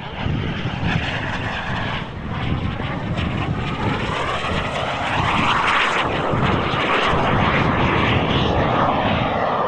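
Airplane flying past at an air show, a loud engine rush that swells to its loudest about halfway through as it passes and then eases off slightly.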